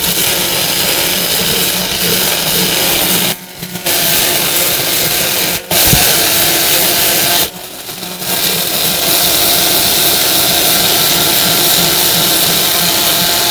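A small electric power tool running steadily, consistent with a rotary tool grinding metal during sharpening. It stops briefly twice and there is a sharp click in between.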